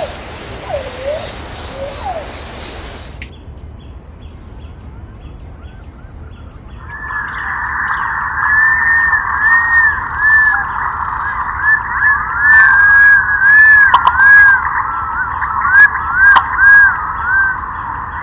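Thick-billed green pigeons calling. A few short rising calls are followed by a sudden change to a quieter stretch. From about seven seconds in comes a dense run of overlapping arched, whistled notes, with a few sharp clicks.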